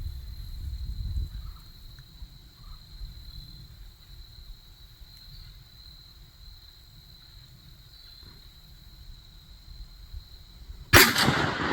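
Wind rumbling on the microphone under a steady high insect drone, then a single loud gunshot near the end.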